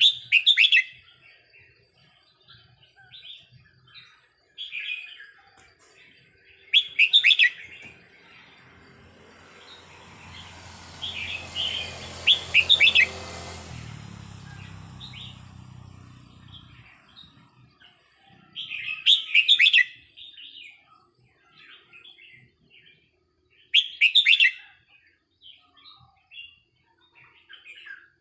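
Red-whiskered bulbul singing: about five loud, short warbled phrases a few seconds apart, with softer chirps in between.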